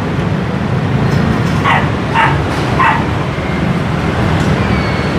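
A small dog yipping three times in quick succession, each yip short and falling in pitch, over a steady low rumble of street traffic.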